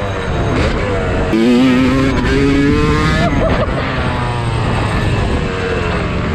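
Dirt bike engine being ridden hard on a motocross track, its pitch rising and falling as the revs climb and drop, with a few abrupt changes.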